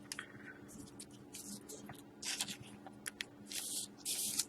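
Hockey trading card being handled and slid into a plastic card sleeve: a string of short sliding and rustling scrapes at irregular intervals, over a faint steady hum.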